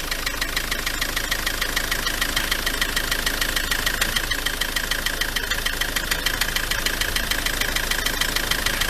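Ford Transit Mk7 2.4 four-cylinder diesel engine idling, heard under the open bonnet, with a steady rapid knocking; the owner suspects the dual-mass flywheel.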